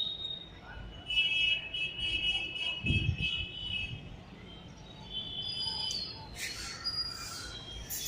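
Slow-moving train's wheels squealing against the rails in high, steady tones that come and go, with a dull thump about three seconds in.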